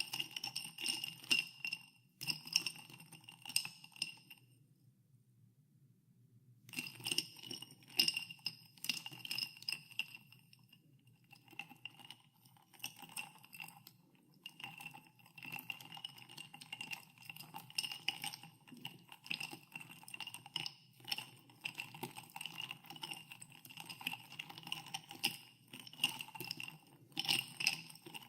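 Ice cubes stirred in a glass of carbonated water, clinking and rattling against the glass so that it rings. The stirring stops for about two seconds, about four and a half seconds in, then starts again and goes on as a steady run of clinks.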